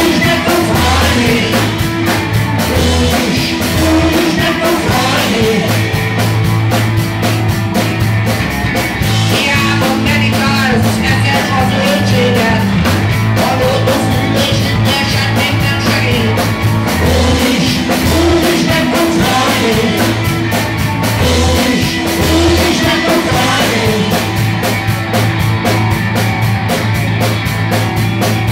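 Live rock band playing a song with electric guitars, bass guitar and drum kit, with a steady beat and sustained low bass notes.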